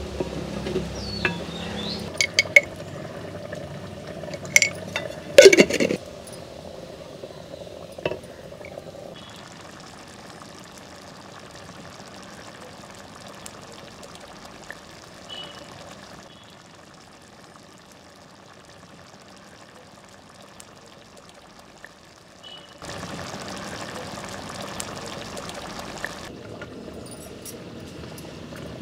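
Cooking sounds at a clay pot: a metal spoon clinking against the pot and liquid being poured and stirred. The sharpest clinks come in the first six seconds, followed by quieter, steadier cooking noise.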